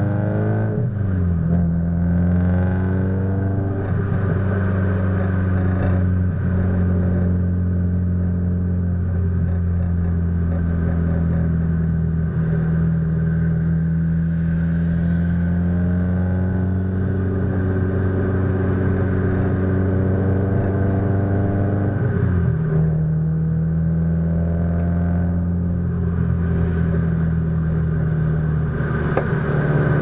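Subaru Impreza STI's turbocharged flat-four through an A.R.T. titanium exhaust, a steady low drone while driving at a steady speed, slightly muffled by a waterproof camera housing. The note dips and recovers about a second in and drops a little in pitch about two-thirds of the way through.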